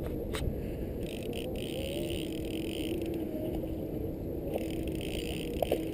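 Boat motor running steadily, a constant hum under a rush of wind and water noise, with a few light clicks.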